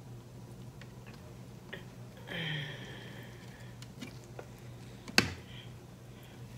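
A metal fork clicking lightly against a cut-glass plate while picking meat and tendons from a turkey leg, with one sharp clink a little after five seconds in.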